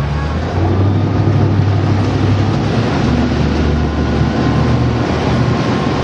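Motorboat engine running steadily while underway, heard from on board, with wind and water rushing past.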